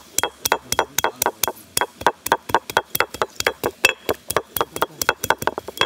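Rapid sharp knocks, about six a second, of turmeric being pounded to break it up before it is ground into paste.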